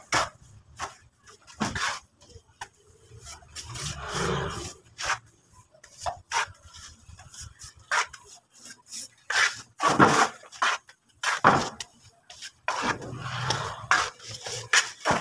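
Plastering trowel scraping and smoothing wet cement render on a wall, in irregular strokes with sharp taps and scrapes between them.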